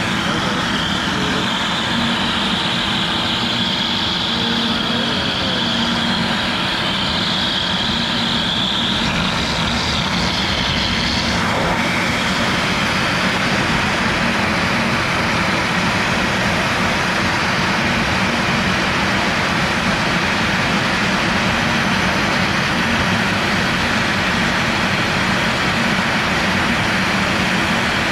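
CNC router carving PVC with a 45° V-bit, its spindle at about 7,000 RPM and the dust-collection vacuum running: a loud, steady machine noise. A high whine over it fades out about eleven seconds in.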